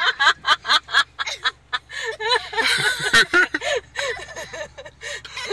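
People inside a car laughing in quick repeated bursts, high-pitched giggles and chuckles with no words.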